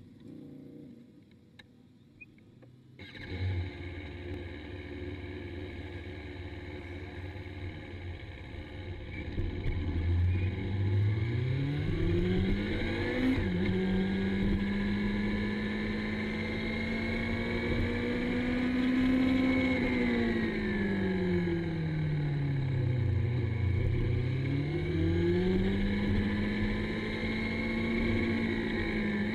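Sport motorcycle engine under way, heard from a camera mounted on the bike. It cuts in abruptly about three seconds in. The engine note then rises as the bike accelerates, holds steady, drops as it slows and climbs again.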